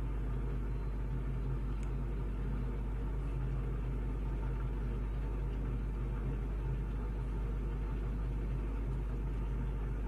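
Steady low hum with a faint hiss above it, unchanging throughout.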